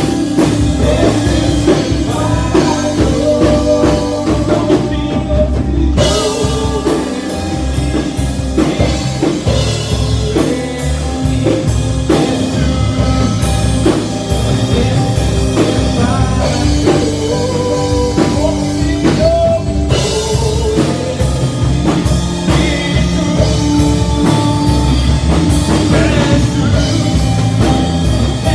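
Live worship band playing a song: chords and melody from a Yamaha MOXF8 synthesizer keyboard over a steady drum-kit beat, with a singer.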